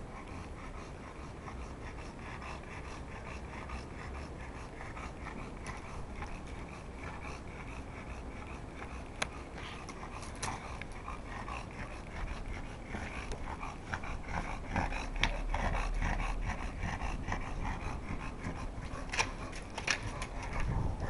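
Bulldogs panting as they play, with scattered sharp clicks and scrapes. It grows louder in the second half.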